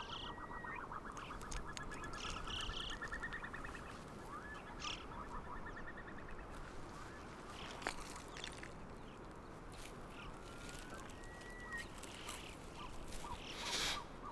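Bird calls: a fast run of short clucking notes that rises slightly in pitch over the first few seconds, then scattered thinner calls.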